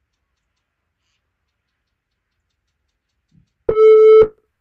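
Interval timer countdown beep: after near silence, a single steady mid-pitched beep about half a second long sounds near the end, marking the last three seconds of a work interval.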